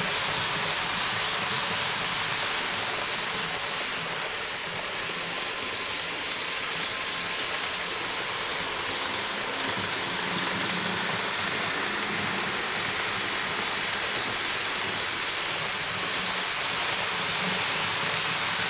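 HO-scale model train running on the layout: the steady whirring rattle of the Roco DB BR 225 locomotive's motor and the wheels rolling on the track. It gets a little louder near the end as the coaches pass close by.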